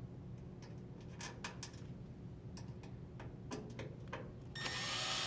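Light clicks and taps of a screw and Phillips bit being handled and set, then near the end a drill driver starts running, driving the ground screw back in, its whine rising in pitch.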